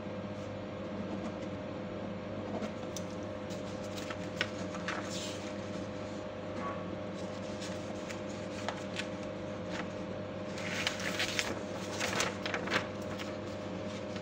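Steady machinery hum aboard an LPG tanker ship, holding several fixed pitches, with scattered clicks and a cluster of louder rustling and clicking about eleven to thirteen seconds in.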